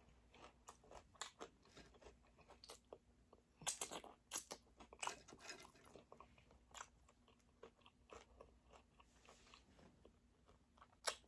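Close-miked chewing and biting of crispy chicken wings: quiet crunches and mouth clicks that come in irregular clusters, loudest about four and five seconds in.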